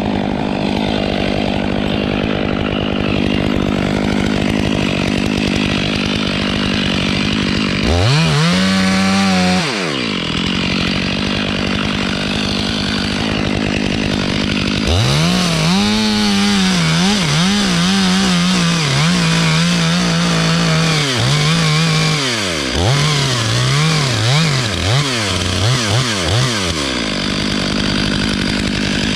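Two-stroke chainsaw idling, revved up and back down once about eight seconds in. From about halfway it runs at high revs with a wavering pitch, then is blipped several times before dropping back to idle near the end.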